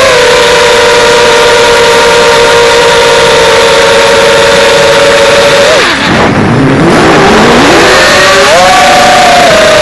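5-inch FPV quadcopter's motors and propellers whining at a steady high pitch. About six seconds in the pitch falls sharply, then climbs back up over the next two seconds.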